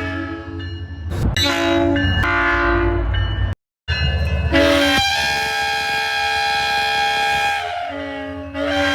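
Commuter-train cab car air horn sounding several chords at once, in short blasts over a low rumble from the train, then a brief cut to silence about three and a half seconds in. After the cut a long blast is held for about four seconds, its notes dipping slightly near the end, and another blast starts just before the end.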